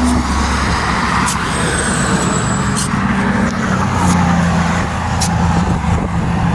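A motor vehicle engine running steadily, with sharp knocks about every second and a quarter.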